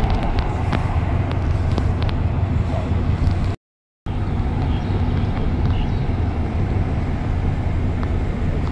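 Steady low rumble of a moving road vehicle, engine and tyre noise heard from inside the vehicle, broken by a brief total dropout about three and a half seconds in.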